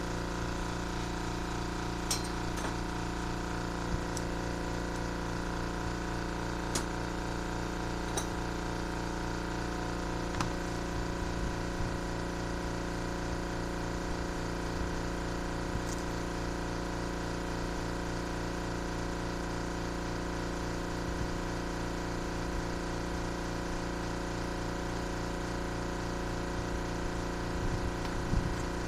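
A steady machine hum made of several steady tones, with a handful of light metal clinks and taps as spark plugs and hand tools are handled on the bench.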